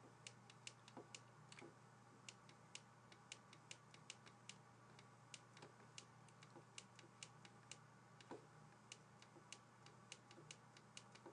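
Faint, irregular light clicks, a few a second, of a stylus tapping and writing on a digital tablet, over a steady low hum.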